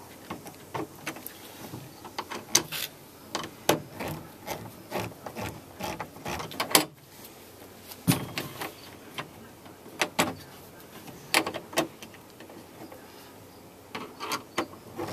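Bolts on a plastic compost tumbler being snugged down with hand tools: irregular clicks and knocks of metal hardware and plastic parts, with a short pause about halfway through.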